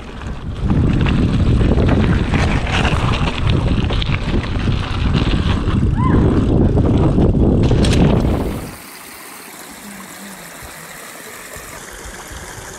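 Mountain bike riding over a gravel trail and a wooden boardwalk, heard from a camera on the bike: the tyres rumble and rattle and wind buffets the microphone. About nine seconds in this cuts off abruptly to the quieter, steady trickle of a small stream running over rocks.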